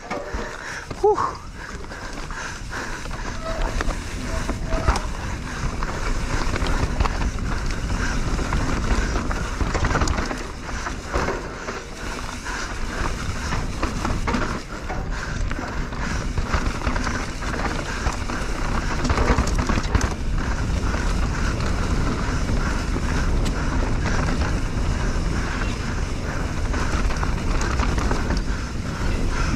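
Mountain bike riding fast down a dirt downhill trail: a steady rolling rumble from the tyres and bike, with occasional sharp knocks as it hits rough ground.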